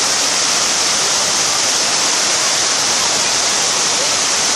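A steady, loud rushing hiss with no breaks, strongest in the high treble.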